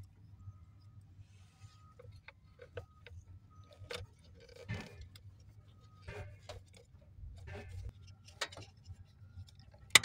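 Hands working a wiring harness and plastic connector at a blower motor housing: scattered small clicks and rattles, with one sharp click near the end. A steady faint low hum runs underneath.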